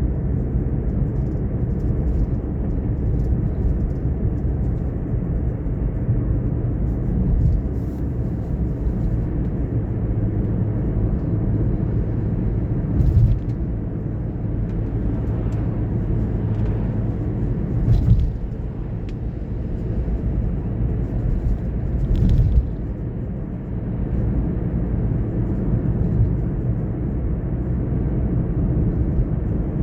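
Steady low rumble of a car driving on the road, broken by three brief knocks a few seconds apart midway through.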